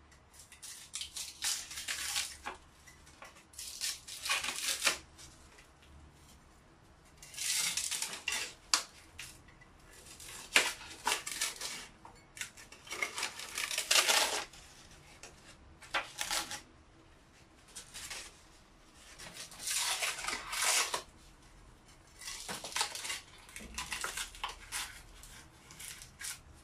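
Old paper wallpaper being ripped off a wall by hand: a series of tearing noises, each about a second long, with short quiet gaps between.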